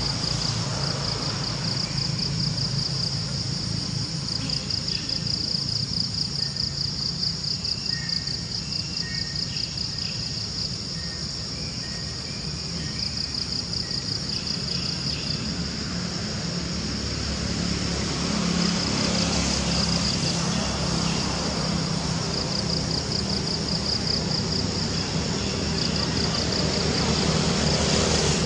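Steady chorus of insects chirring in a high, finely pulsing band, over a low engine hum that grows louder in the second half.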